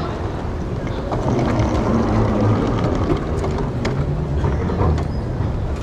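Steady low rumble and hiss of a wheeled suitcase rolling over the floor and onto a descending escalator, with the running escalator and the terminal hall's background noise; it gets a little louder about a second in, with a few faint clicks.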